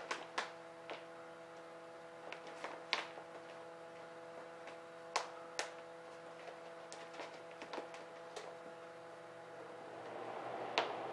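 Scattered soft clicks, taps and rustles from hands working the stiff face of a lynx pelt through as it is flipped on a wooden board, with rubbing noise growing near the end. A steady electrical hum sits underneath.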